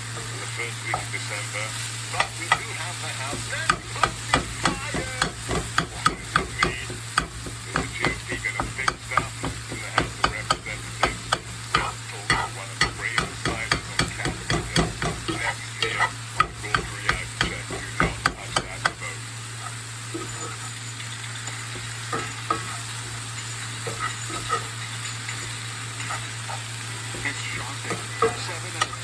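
Ground sausage meat sizzling in a frying pan while a utensil stirs it. For about fifteen seconds the utensil makes rapid clicks and scrapes against the pan, then only a quieter sizzle remains, over a steady low hum.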